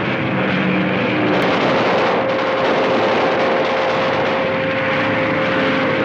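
Propeller aircraft engine droning steadily overhead, loud and unbroken, with a steady tone running through it.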